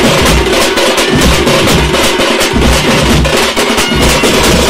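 A tamate drum band playing loudly: many hand-held tamate frame drums struck with sticks in a fast, dense rhythm over the regular low thuds of large stick-beaten bass drums.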